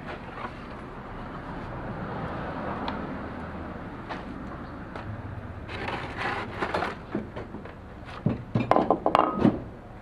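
Scattered knocks and clatter of hard objects being handled, ending in a quick run of loud knocks near the end, over a low steady hum.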